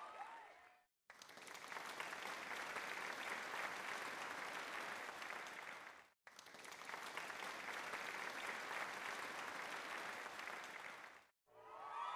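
Applause, a crowd clapping, in two stretches of about five seconds each. It starts about a second in, breaks off abruptly for a moment near the middle, and cuts off again just before the end.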